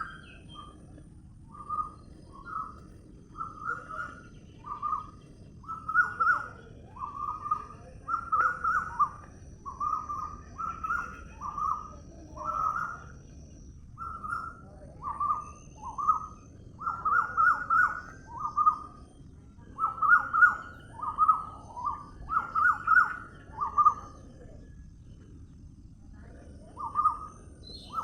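A bird calling over and over in short, slightly rising notes, about one or two a second, with two brief pauses, over a steady low background noise.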